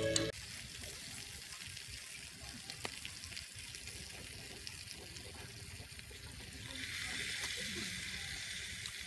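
Snails in their shells sizzling on a hot stone slab over a wood fire: a steady hiss that grows louder and brighter about seven seconds in.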